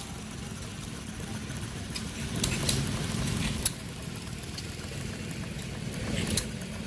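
Small stationary engine running steadily, with a few sharp clicks.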